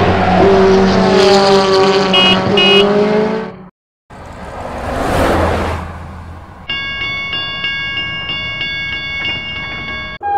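Sound effects of a large truck's engine passing, with two short horn beeps, then a cut and a vehicle swishing past. About two-thirds of the way in, a railway level-crossing warning bell starts ringing in a steady repeating pattern as the barriers come down.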